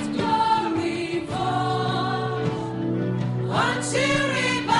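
Live gospel worship singing: a group of singers holding long notes together over a steady low accompaniment, with sung phrases sliding in pitch about a second in and again near the end.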